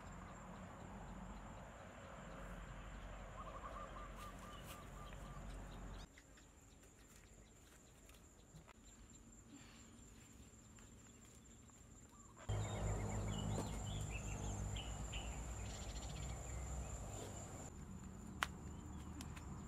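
Rural outdoor ambience: insects keep up a steady high-pitched drone throughout, over a low rumble that drops away about six seconds in and comes back louder about twelve seconds in. A short run of quick chirps sounds near four seconds, and a single sharp click near the end.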